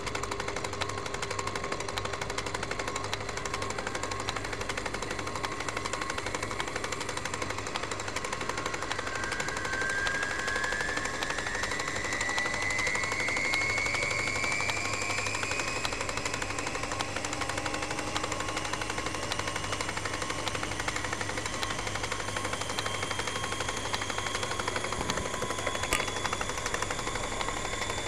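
Rapid, continuous clicking clatter with steady electronic tones underneath, a sound effect for text printing out on a terminal screen; a thin whine rises slowly in pitch through the middle.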